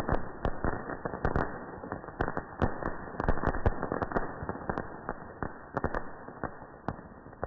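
Panda Pots ground fountain firework (an Indian flower-pot cracker) spraying sparks: a steady hiss with rapid, irregular crackling pops, easing slightly near the end.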